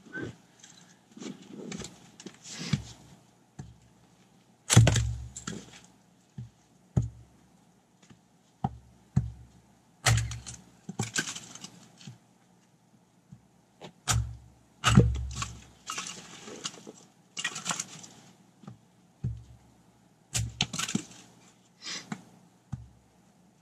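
An axe striking firewood on a wooden chopping block, a series of irregular chops a second or a few seconds apart. Each chop is a sharp, heavy thunk, and the loudest land about five, ten and fifteen seconds in.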